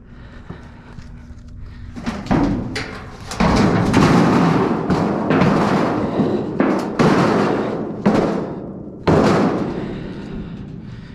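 A run of loud crashes and bangs, with scraping between them, as garage door sections are shifted and dropped inside a steel dumpster. The crashes start about two seconds in and die away near the end.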